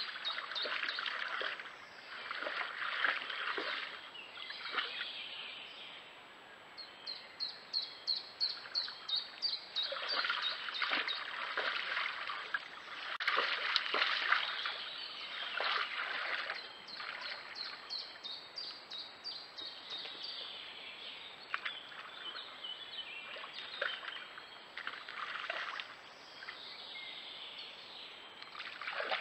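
Red deer wading in a shallow stream, water splashing and sloshing in repeated bursts as they step through it, with birds calling faintly.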